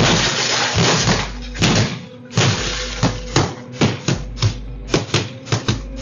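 Axes hitting a parked car again and again, picked up by a doorbell camera's microphone: a long noisy crash in the first second, then a dozen or so sharp blows at uneven intervals. A low steady music drone runs underneath.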